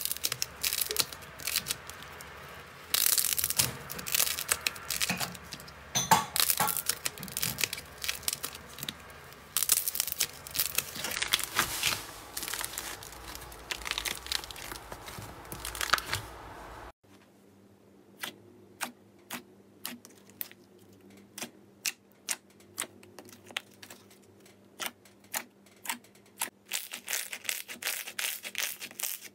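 Hands kneading and pulling apart stiff, crumbly clay-like slime, giving dense crackling and tearing sounds. About two-thirds of the way through this gives way to glossy blue slime squeezed by hand in a tray, making separate sharp pops and clicks, two or three a second.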